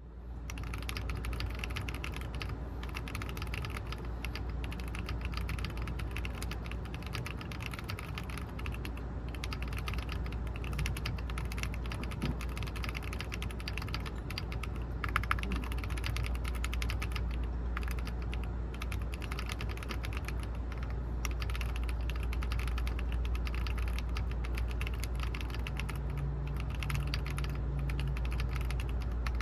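Continuous typing on a Keyboard 81 Pro mechanical keyboard with Winter Bonfire red switches and double-shot PBT keycaps: rapid, uneven keystroke clacks, one louder strike about halfway through, over a steady low hum.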